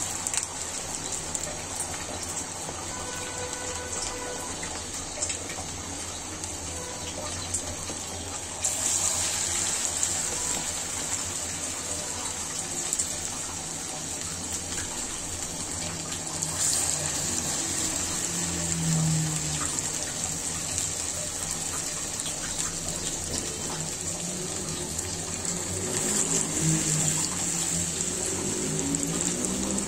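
Piaju (lentil fritters) deep-frying in hot oil in a karahi: a steady sizzle with fine crackling bubbles, which grows louder about nine seconds in.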